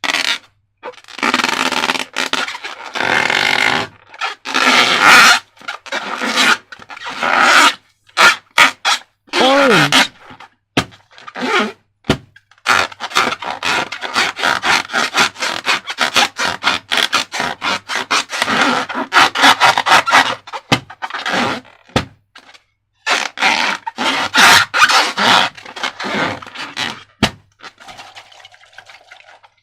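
Slime being squished and worked by hand, giving wet, sticky squelches in irregular bursts with many sharp clicks. A short squeak falling in pitch comes about ten seconds in.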